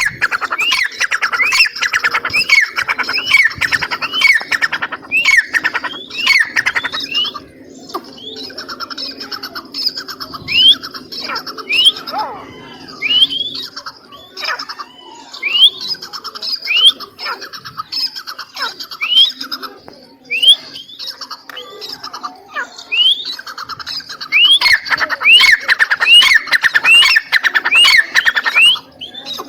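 Female francolin (teetar) calling: a long series of short, rising squawking notes, fast and crowded for the first few seconds and again near the end, slower and more spaced out in between.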